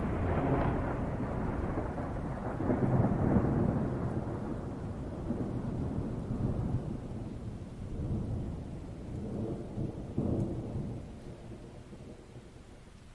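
Rolling thunder: a deep rumble that swells several times and slowly fades away toward the end.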